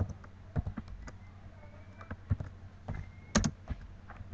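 Computer keyboard keys being typed, a dozen or so irregular keystrokes with a louder pair of clicks about three and a half seconds in.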